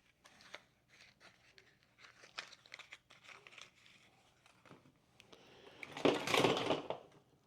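Hands rummaging through a box of small junk parts: scattered light clicks and rustles, with a louder crinkling rustle lasting about a second, about six seconds in.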